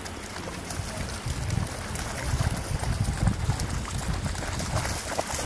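Wind buffeting the microphone in gusts, with dogs splashing as they run and wade through shallow water.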